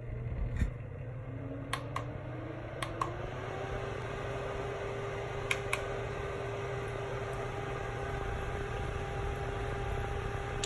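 Small fan motor of a personal mini air cooler spinning up with a rising whine, then running steadily with a hum. A few sharp clicks in the first three seconds and two more about halfway through.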